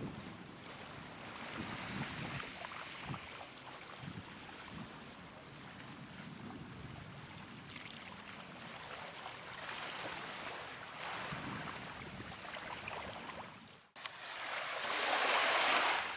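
Sea surf washing on the shore in steady rain, a continuous rush of water noise with some wind on the microphone. After a sudden break near the end, a louder surge of rushing surf.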